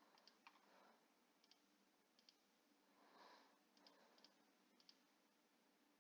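Near silence with faint, scattered computer mouse clicks, about seven light clicks.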